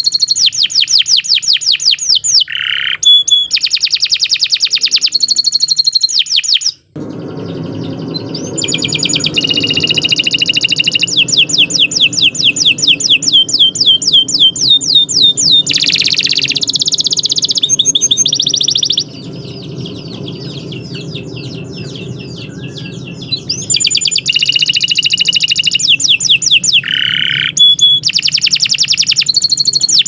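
Domestic canary singing a long, unbroken song of fast rolling trills, one rapid run of repeated notes after another. A short break comes about seven seconds in, and the song goes softer for a few seconds about two-thirds of the way through. A steady low background noise sits under the middle part.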